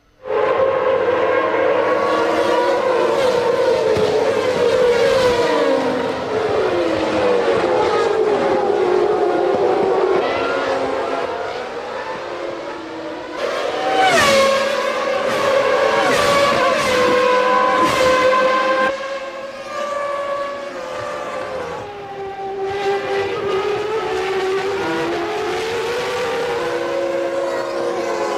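Formula One cars' engines at high revs, several at once, their pitch rising and falling with gear changes and as the cars pass. The sound changes abruptly several times, about halfway through and again later, as the coverage cuts between shots.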